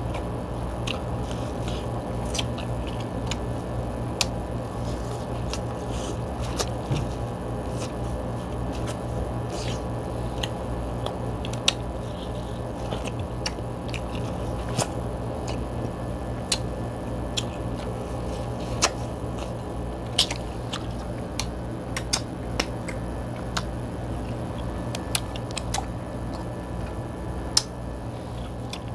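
Eating sounds: chewing and hands working seafood and corn, with scattered sharp clicks and snaps of shell, over a steady low hum.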